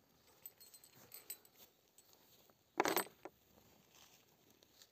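Small steel CO2 cartridges clinking together as they are set down on a fiberboard sheet, a short clatter about three seconds in, with a few faint handling clicks before it.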